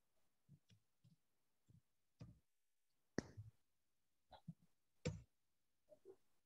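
Near silence broken by faint, scattered clicks and knocks, the loudest about three seconds in and another about five seconds in.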